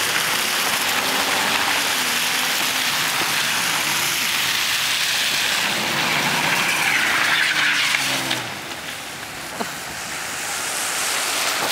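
A car engine revving in rising and falling surges under load as the car tries to pull out of a snowed-in parking space, over a steady hiss. The revving eases off near the end.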